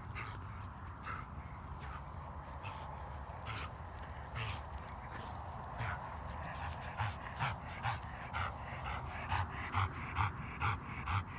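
A dog breathing in short, breathy puffs, scattered at first, then from about seven seconds in an even run of two to three a second. The owner calls it coughing and wonders what is wrong with the dog's lungs.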